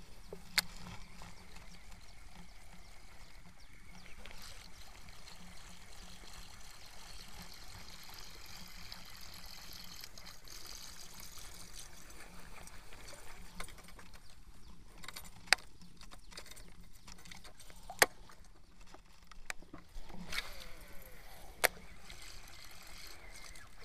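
Baitcasting reel in use while a lure is cast and retrieved for giant snakehead: a steady faint background with four sharp clicks from the reel and tackle. Near the end a falling whirr is heard as the spool pays out line on a cast.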